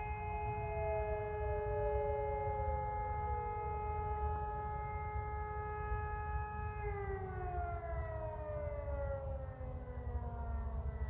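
Civil-defence warning sirens sounding in a monthly siren test. One siren holds a steady tone, then slides down in pitch about seven seconds in, while a second siren falls in pitch during the first few seconds.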